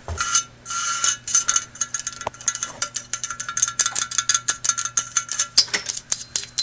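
Quick, irregular tapping on a hard object that rings with a metallic, bell-like tone between taps.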